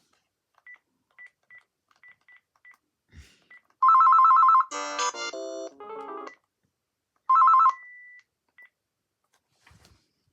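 Electronic tones from a Panasonic KX-PRW120 cordless phone. There is a string of short high key beeps, then about four seconds in a loud warbling two-tone ring burst and a short electronic melody. Near the end comes a second brief warble, a held beep and one last short beep.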